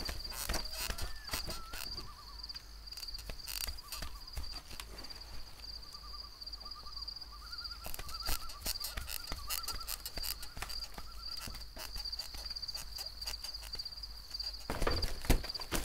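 Night-time ambience: insects trill steadily at a high pitch while short hooting calls, typical of an owl, repeat again and again. Scattered soft clicks run through it, with a louder knock near the end.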